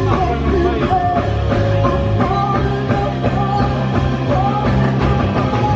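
Rock music with a singing voice over a steady bass and drum beat.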